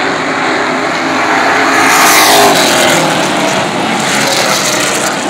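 Short-track stock cars racing on an asphalt oval, engines running hard. One car passes close about two seconds in, its engine pitch falling as it goes by.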